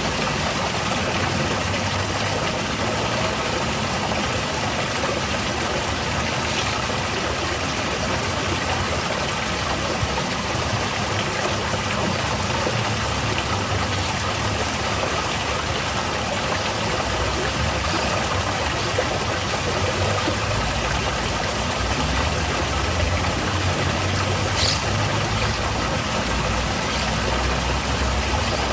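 Small cascade of falling water splashing steadily, with a low rumble underneath.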